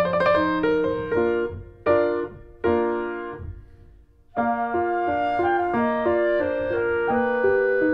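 Background piano music, a melody of sustained notes; it dies away to a short pause about three and a half seconds in, then starts again.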